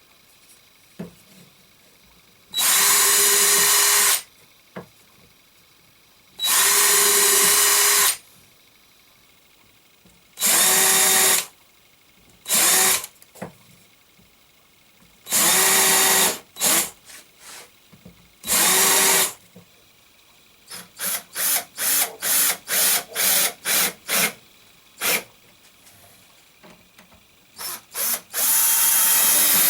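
Electric drill run in repeated bursts of a second or so, its motor pitch sagging as each burst ends, then a string of short trigger taps about three or four a second, and another burst near the end, as when drilling or driving screws into wood.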